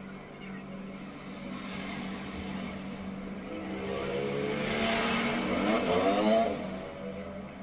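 A motorcycle engine passing by on the road, growing louder over the first few seconds, peaking near the end with its pitch dropping as it goes past, then fading. A steady low hum runs underneath.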